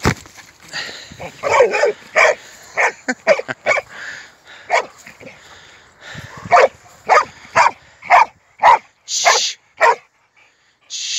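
American Staffordshire Terrier barking in a long run of short, sharp barks during play, with a short lull in the middle.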